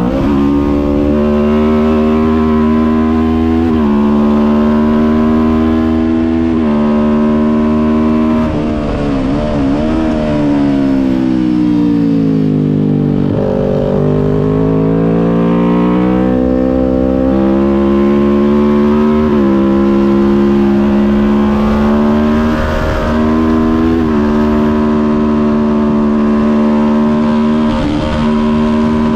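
Kawasaki Ninja 400 parallel-twin engine at racing speed, rising in pitch through each gear with a sharp drop at every upshift. About a third of the way in, the pitch falls in steps through downshifts as the bike brakes for a corner, then climbs back up through the gears.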